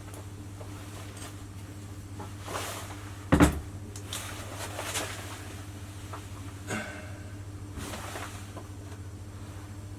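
A few knocks and clatters of containers being handled and set down while epoxy is measured out, one sharp knock about a third of the way in, over a steady low hum.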